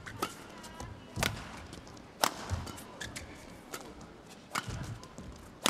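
Badminton rackets striking a shuttlecock in a fast rally: sharp cracks roughly a second apart, with smaller clicks between them.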